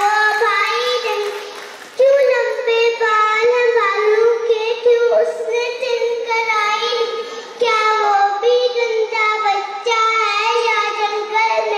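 A young girl's voice chanting a rhyming Urdu poem in a sing-song tune into a hand-held microphone, line after line with short breaths between them.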